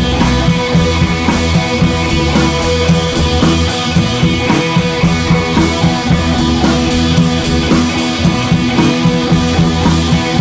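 Background rock music with drums and a steady beat.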